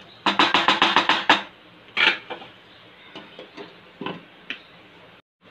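Spatula knocking and scraping against a black kadai while stirring chicken masala: a quick run of about ten knocks, then one louder knock about two seconds in, then a few lighter clicks.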